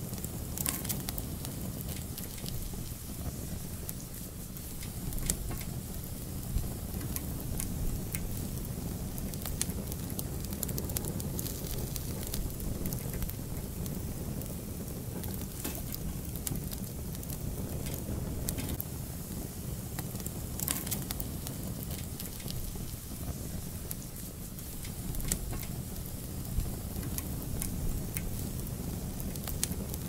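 Fireplace fire burning: a steady low rumble of flames with scattered crackles and pops.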